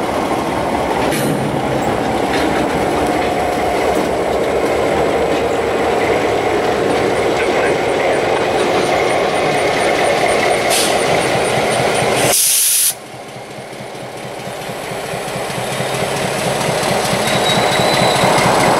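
Freight cars rolling past with the wheels clicking over the rail joints. A short sharp hiss comes about twelve seconds in, after which the sound drops away and builds steadily as the EMD GP9 diesel locomotive on the rear of the train draws near.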